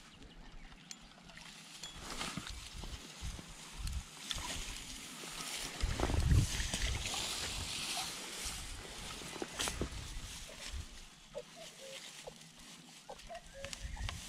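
Water splashing and sloshing as a common carp is drawn into a landing net and lifted from the pond, loudest about six seconds in, followed by rustling of grass and the net as it is carried.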